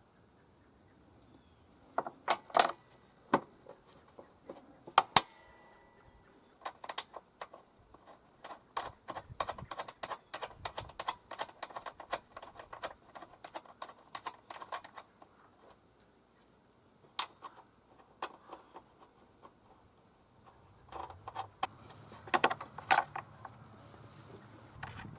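Metal clinks and clicks from hand tools and mower-deck parts being handled. A few sharp clacks come early, then a long run of quick, fairly even clicks in the middle, and more clatter near the end.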